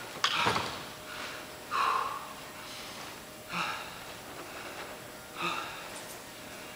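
A man breathing hard after a set of dumbbell exercises: three sharp exhalations about two seconds apart, with a short knock just after the start.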